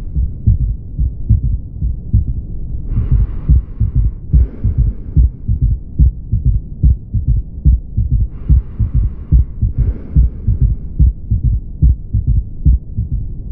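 Heart sounds with a third heart sound (S3): a repeating run of low thuds falling in a galloping triple beat, the ventricular gallop.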